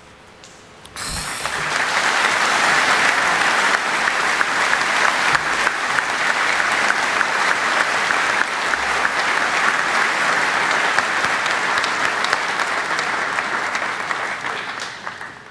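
A large crowd applauding at the close of a speech. The clapping starts suddenly about a second in, holds steady, and dies away near the end.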